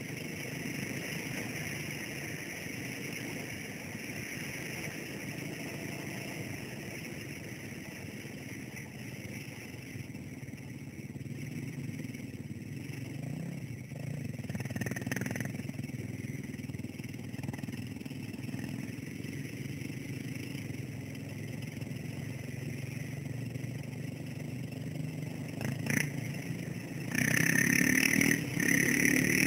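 Dirt bike engine running steadily while riding, heard from the rider's helmet camera. It becomes clearly louder about two seconds before the end.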